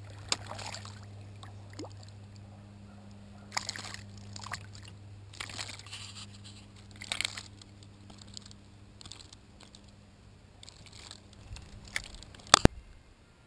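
A hooked fish thrashing at the surface beside a kayak, making several short splashes. There is a sharp knock near the end and a steady low hum underneath.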